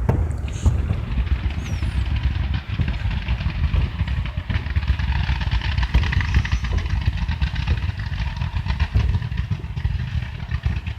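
Aerial fireworks going off: a continuous low rumble of bursts with rapid crackling throughout.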